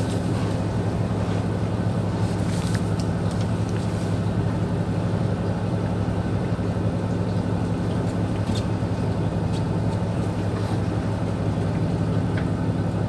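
A fishing boat's engine running steadily with a low, even drone. A few faint ticks come over it.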